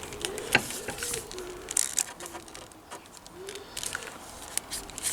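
Scattered small clicks and rattles from wiring and light-fitting parts being handled, while a pigeon coos softly in the background.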